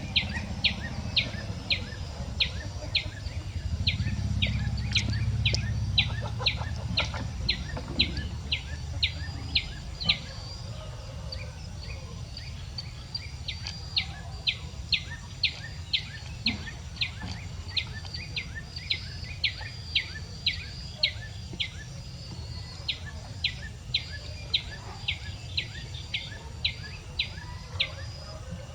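A small bird calling with a short, high chirp repeated steadily about twice a second, pausing twice, over a low rumble that swells briefly a few seconds in.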